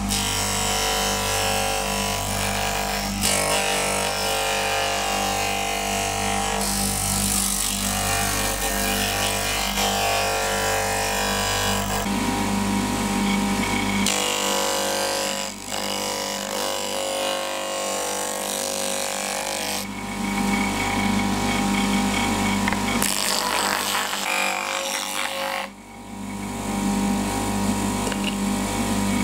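Homemade disc sander driven by a three-phase water-pump motor, humming steadily while a wooden block is pressed against the spinning sandpaper disc, with the hiss of wood being sanded. The sound changes abruptly several times.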